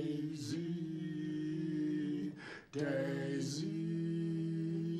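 An older man singing an isiZulu song a cappella, holding two long notes with a short break for breath a little after two seconds in.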